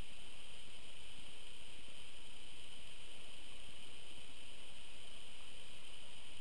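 Steady, even hiss with no separate sounds in it: the self-noise of a trail camera's built-in microphone.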